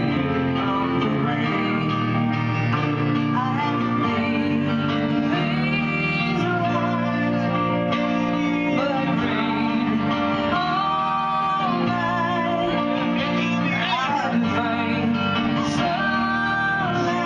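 Live song: a woman singing lead over electric keyboard and electric guitar, played together without a break.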